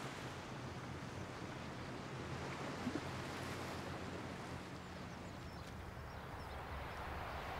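Low, steady outdoor ambience: an even rushing hiss like wind over open ground, with a faint low hum underneath and no distinct events.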